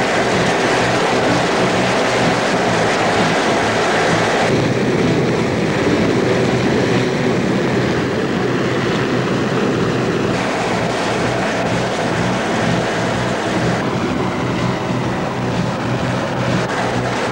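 Hovering helicopter: loud, steady rotor and engine noise with a low throbbing hum under a rushing wash of air. Its character shifts abruptly a few times.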